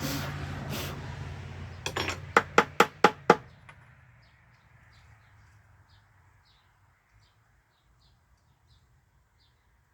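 A rough scraping sound, then a quick run of about six sharp taps or knocks, several a second, about two seconds in. After that, faint high bird chirps repeat at a steady pace.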